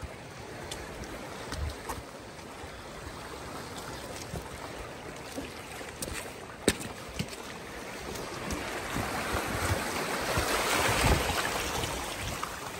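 Small waves washing in and out over rocks at the shoreline, swelling louder in the last few seconds, with gusts of wind on the microphone. One sharp click comes about two-thirds of the way through.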